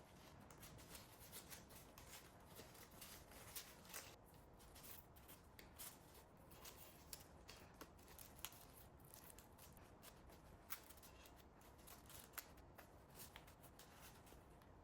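Faint rustling and crackling of zongzi leaves being folded and handled while a zongzi is wrapped, with many small, sharp, irregular clicks.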